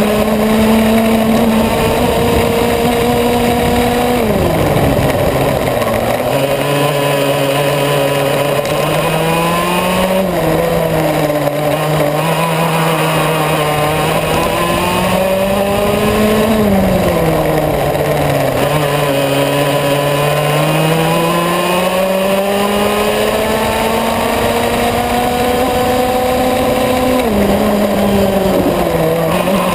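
Yamaha KT100S single-cylinder two-stroke kart engine running hard on a lap, its revs climbing steadily and then dropping sharply about four times as the kart brakes for corners.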